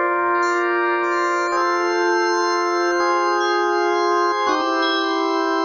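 Korg Pa2X Pro arranger keyboard in digital drawbar mode, playing Hammond organ emulation: sustained organ chords that change twice, with brighter upper tones coming in during the first couple of seconds.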